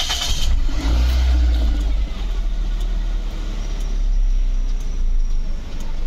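Toyota Wish's four-cylinder petrol engine starting from the push button. The starter cranks briefly, and the engine catches about half a second in. It runs louder for about a second and a half, then settles to a steady idle.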